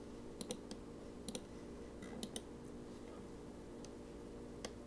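Scattered sharp clicks from working a computer, several in quick pairs, over a faint steady hum.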